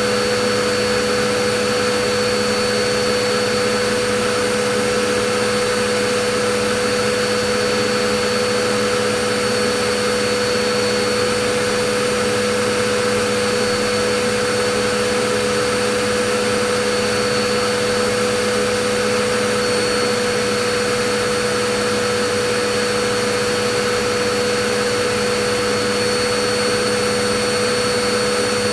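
Vacuum cleaner running continuously: a steady rush of air with a constant motor hum and a high whine, unchanging throughout.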